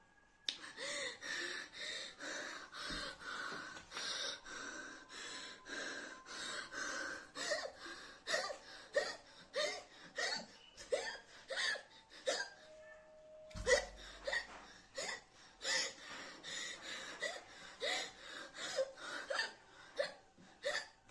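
A woman's short, voiced gasping and hiccuping breaths, coming about two a second, as she struggles to breathe from the burn of an extremely hot chili chip. Two-thirds of the way through they pause briefly and there is a low thump.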